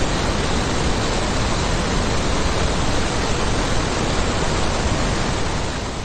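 A steady, loud, even hiss that fades out near the end.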